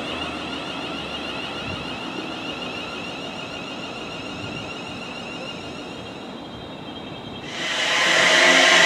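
A Siemens Desiro Class 350 electric multiple unit moves along the platform with a steady whine from its electric traction equipment. About seven and a half seconds in, a much louder, even rushing noise starts abruptly.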